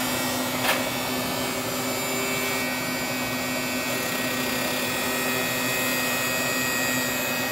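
Sparx electric skate sharpener running steadily while sharpening a skate blade, a constant motor hum with a high whine. A single light click sounds just under a second in.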